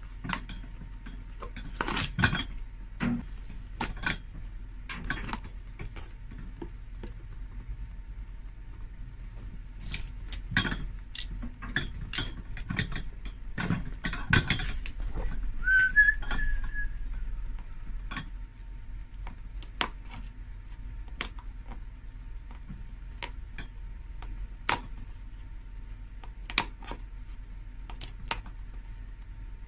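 Metal cobbler's pincers clicking, scraping and tapping irregularly against a shoe's insole as the old cork filler is clawed out, with a short squeak about halfway through.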